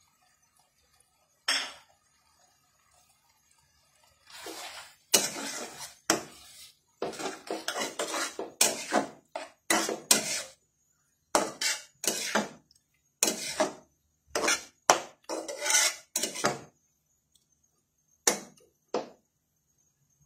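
Metal spoon scraping and clanking against a wide metal pan as chicken, vegetables and peas are stirred: one stroke at first, then a quick run of repeated strokes for about twelve seconds, then two more near the end.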